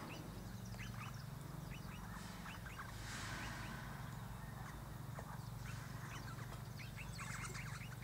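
Eastern rosellas chattering faintly: bursts of short, rapid notes, thickest near the end.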